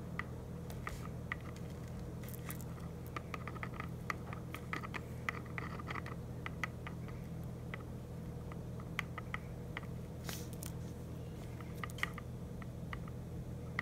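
Faint, irregular small clicks and crackles as a wax floor-repair crayon is pressed against the hot metal tip of a glue gun to melt it, over a steady low hum.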